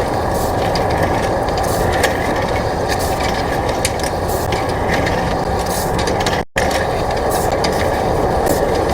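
Steady mechanical running noise with scattered light clicks, cutting out completely for a moment about six and a half seconds in.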